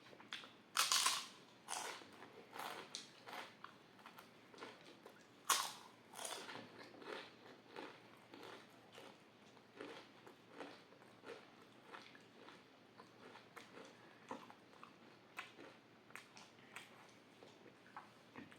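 Close-miked chewing of food by mouth, with two loud crunchy bites about one second and five and a half seconds in, then softer chewing that repeats steadily.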